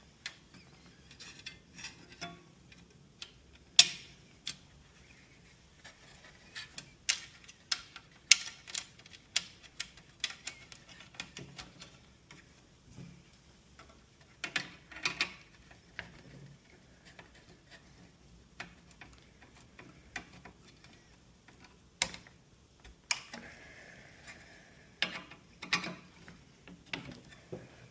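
Irregular sharp clicks and light knocks of hand tools and plastic parts as the mounting screws and nuts on a replacement radio's brackets are tightened and the screen's position in the dash fascia is adjusted, with a denser run of clicks about halfway through and again near the end.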